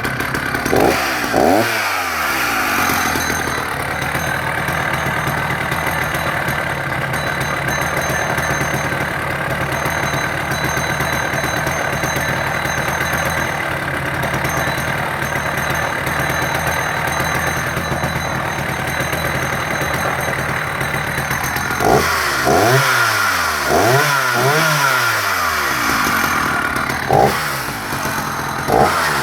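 Vintage Husqvarna 380S two-stroke chainsaw, just started, revved briefly twice and then idling steadily for a long stretch. Near the end the throttle is blipped up and down several times.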